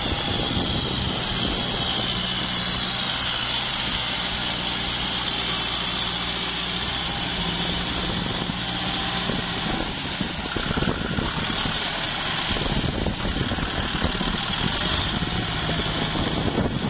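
Kubota tractor's diesel engine running steadily as the tractor churns through deep mud and water, with muddy water sloshing around the wheels. The rushing noise grows stronger after about ten seconds.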